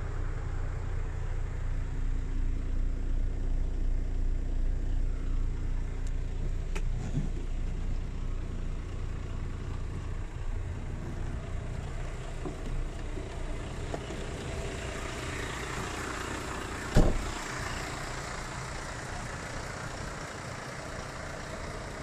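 Iveco Stralis 460 Euro 6 diesel engine idling steadily in neutral, heard from inside the cab, with a low rumble. There is a single sharp thump about seventeen seconds in.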